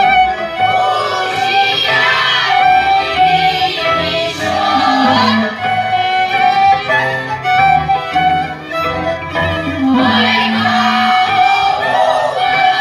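Romanian folk dance music led by fiddle, with a group of women's voices singing together in several phrases, about a second in, around four seconds in, and again near ten seconds.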